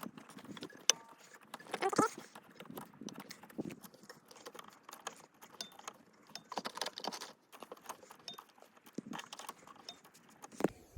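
Hands working a snowmobile drive belt and clutch: irregular metallic clicks, knocks and rubbing as the clutch is turned with the spreader key and the belt is worked around it, with a louder scrape about two seconds in.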